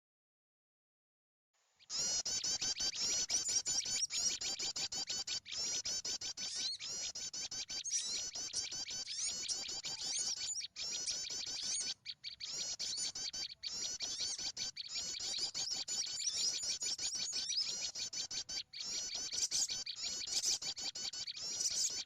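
Dense, unbroken chorus of small-bird chirps and twitters, the kind of noisy recorded lure call played to draw small birds such as white-eyes down to lime sticks. It begins about two seconds in, after dead silence.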